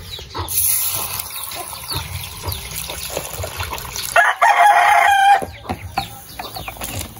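A rooster crows once, the loudest sound, starting about four seconds in and lasting over a second. Under it, water is poured from a plastic dipper over a hot metal-pipe mould used to cast a lead fishing sinker, and small birds chirp.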